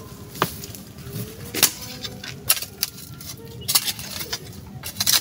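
A hand hoe chopping into loose soil in repeated strikes, roughly one a second, the metal blade scraping and clinking as it bites the earth.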